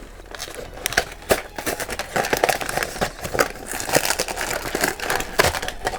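A cardboard blind box being opened and its blind bag drawn out: packaging crinkling and crackling, with many short clicks and taps.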